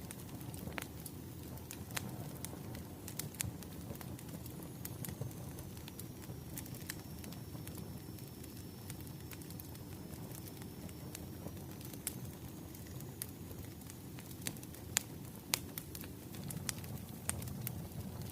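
Wood fire burning: a steady low rumble with irregular sharp crackles and pops, and a faint thin high whistle through the middle.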